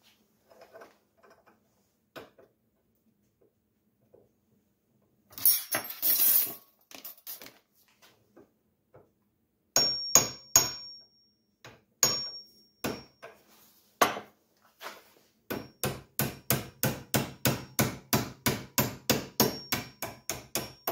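Hammer striking a socket used as a driver to seat a knee mill's new quill return clock spring in its slot. First a short clatter, then a few single blows, some with a brief metallic ring. Over the last five seconds comes an even run of quick taps, about four a second.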